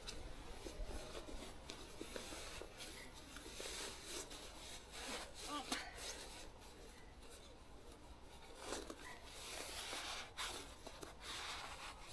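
Sleeping bag being stuffed into its stuff sack: fabric rubbing and rustling in irregular scrapes.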